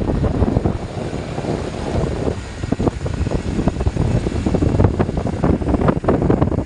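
Custom 4x4 speaker box set-up (D12 to D15) on a sound test, playing loud bass-heavy audio with dense, pulsing low end and repeated short thumps.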